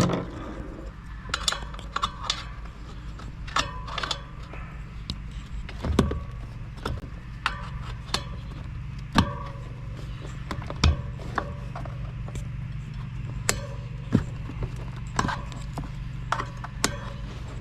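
Stiff downhill-casing mountain bike tire being worked onto its rim by hand: irregular clicks, knocks and rubbing as the rubber bead is pushed and held over the rim edge, over a steady low hum.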